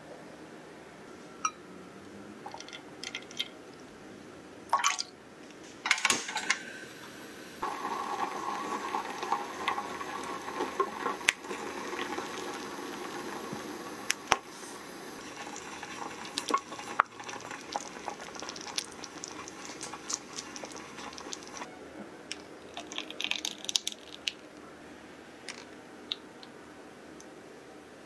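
Kitchen utensil sounds: a spatula tapping and scraping against a glass bowl of melted chocolate, then a steadier stretch of liquid being stirred in a saucepan, with scattered light clicks of utensils against dishes.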